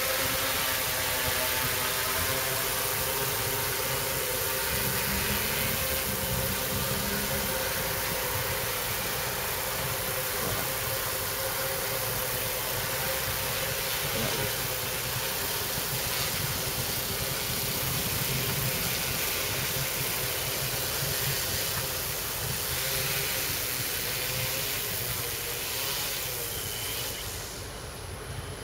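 Yuneec Typhoon Q500 4K quadcopter's electric motors and propellers humming steadily as it hovers and comes down to land. The sound drops off near the end as it sets down.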